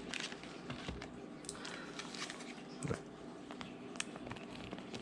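Rustling and light clicking of mail packaging being handled and opened by hand, with a single louder thump a little before three seconds in.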